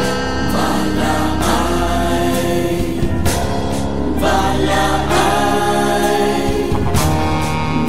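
Background music: a Vietnamese Catholic Marian hymn in an interlude between verses, with choir and accompaniment and no clear words.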